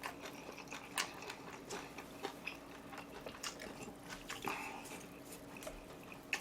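A person chewing food close to the microphone, with quiet mouth sounds and scattered soft clicks and smacks.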